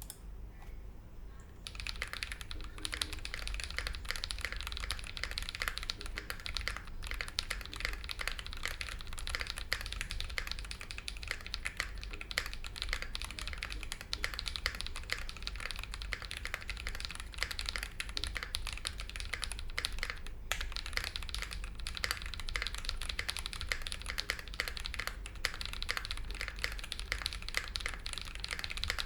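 Continuous fast typing on a Think6.5 v2 custom mechanical keyboard with a polycarbonate plate, Drop Holy Panda tactile switches and GMK keycaps: a dense stream of keystrokes that starts about two seconds in, with a brief pause about twenty seconds in.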